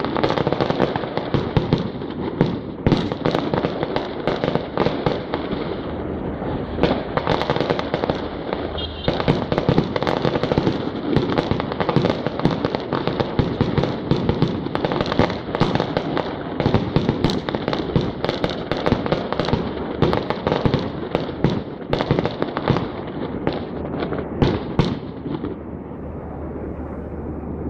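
Fireworks display: a dense, continuous barrage of bangs and crackling bursts, thinning out near the end.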